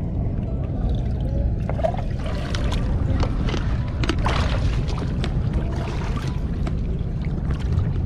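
Shallow river water splashing and sloshing as someone wades and reaches among stones, with scattered sharp splashes and clicks from about two seconds in, over a steady low rumble.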